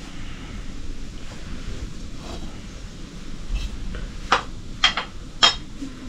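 A ladle clinking sharply against a steel wok and pot, about six times in the second half, over a steady low rushing noise.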